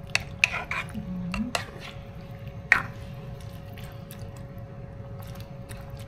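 Plastic ladle clicking and scraping against a nonstick pan as a thick gravy is stirred and scooped, a few sharp knocks in the first three seconds with the loudest near the three-second mark. A steady faint hum runs underneath.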